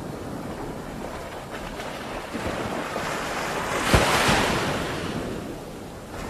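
Wind buffeting the microphone over lapping ocean waves. About four seconds in the noise swells into a louder gust or splash with one sharp knock, then eases off.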